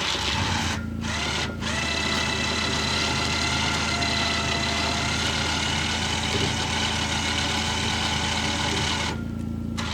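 Kawasaki Mule utility vehicle's engine running steadily under load, with a mechanical whine on top that cuts out briefly twice early on and once near the end while the engine hum carries on.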